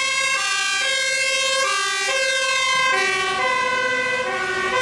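Fire engine two-tone siren sounding continuously, its pitch stepping back and forth between two notes, typical of an Austrian fire truck's horn.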